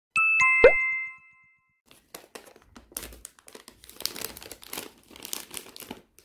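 A short chime jingle of a few bell-like ringing tones with a quick falling note, dying away within about a second and a half. Then, from about two seconds in, a thin clear plastic bag crinkles as it is opened by hand.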